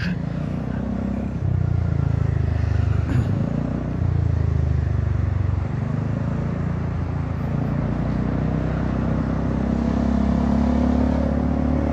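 Honda Forza 300 scooter's single-cylinder engine running through its aftermarket exhaust, freshly repacked with fibreglass wool, while riding in traffic. The engine note swells with the throttle a couple of times, then rises in pitch as it accelerates near the end.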